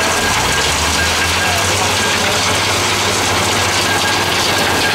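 Gold-mining trommel plant running: a steady engine drone under a loud, even rushing noise.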